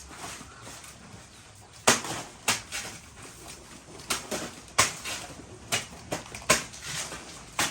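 A blade chopping into wood: about seven sharp, irregular knocks, the loudest about two seconds in.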